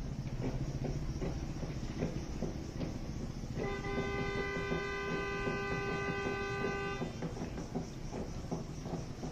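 A vehicle horn sounds one long steady blast of about three seconds, starting a few seconds in, over a constant background of outdoor noise with scattered faint knocks.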